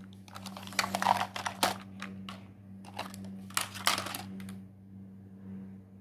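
Hard plastic toy cars and building blocks clattering and knocking together as they are moved by hand, in two spells of rattling clicks, the second about three and a half seconds in, over a steady low hum.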